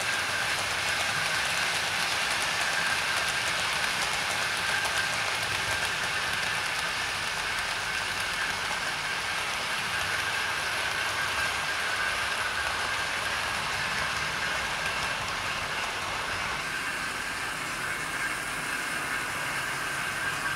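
00 gauge model trains running on the track: a steady whirr of motors and wheels on the rails, with a constant high whine.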